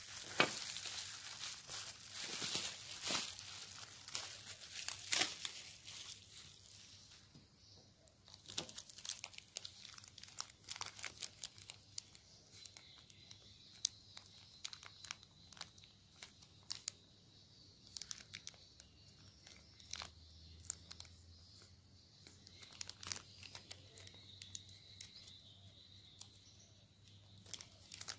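Bubble wrap and a thin plastic bag crinkling as they are handled and unwrapped. There is dense, continuous crackling for the first several seconds, then scattered crackles and clicks.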